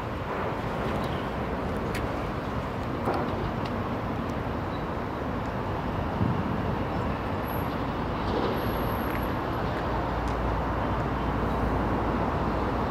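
Distant passenger train approaching slowly over the tracks: a steady low rumble that grows slightly louder near the end.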